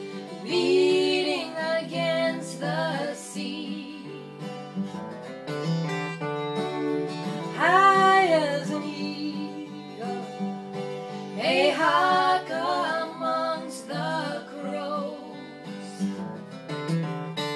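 Folk song: women singing with an acoustic guitar accompaniment.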